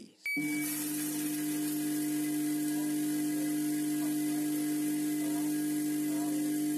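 Vibratory feeder of a weighing filling machine running, a steady electric buzz with a hiss over it, while tea leaves stream along the feed tray. A brief high beep at the moment it starts.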